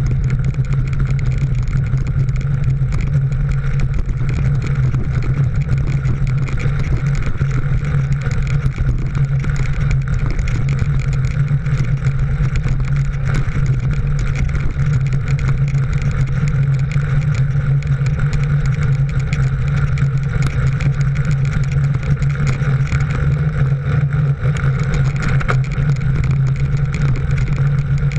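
Steady wind and road noise on a camera mounted on a racing bicycle riding at speed, a constant low hum and rushing with no break.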